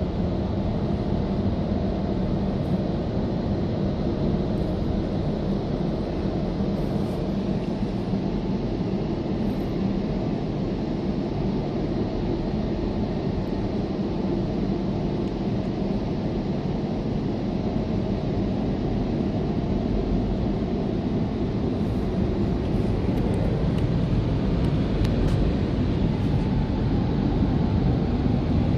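Automatic car wash running with its spinning blue brushes scrubbing along the car's sides, heard from inside the cabin. It is a steady low rumble that grows a little louder near the end.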